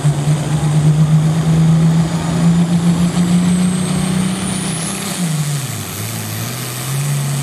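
Farm tractor's diesel engine running loud at high revs, its pitch climbing slowly. A high whine rises with it. About five seconds in the engine note drops sharply, then picks back up.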